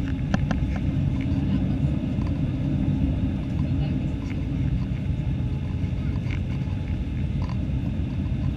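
Steady low rumble inside an airliner cabin on approach: the Airbus A318's CFM56 engines and the airflow over the fuselage. A few light clicks come near the start.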